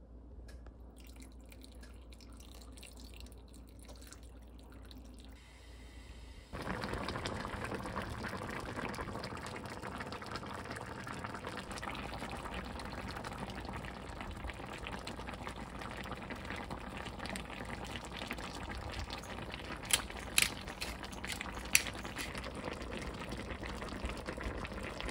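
A pot of Korean sausage stew (jjageuli) boiling, a dense, steady bubbling that starts abruptly about six and a half seconds in after a quieter stretch of light clicks from ingredients being set into the pot. A few sharp clicks stand out near the end.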